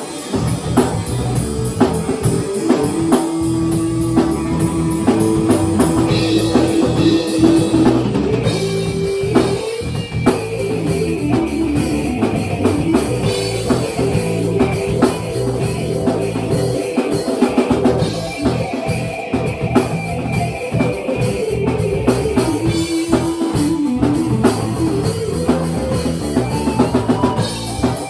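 Rock music played live by a small band: a drum kit keeps a steady beat under guitar, with a long held note for several seconds early in the passage.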